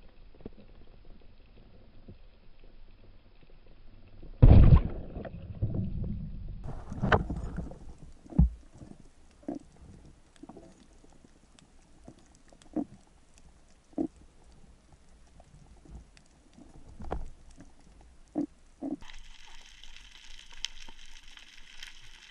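Underwater speargun shot: a sudden heavy thump about four and a half seconds in, followed by a few seconds of rough churning water as the speared jack fights, then a string of short sharp clicks and knocks about once a second.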